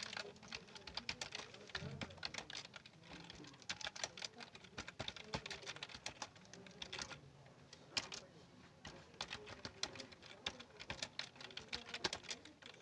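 Keys being typed on a keyboard: a continuous, irregular run of key clicks, with a short pause about seven seconds in.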